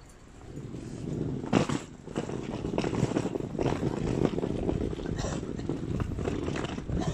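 Wind rumbling against the camera microphone, building up about half a second in, with knocks from the handheld camera roughly once a second.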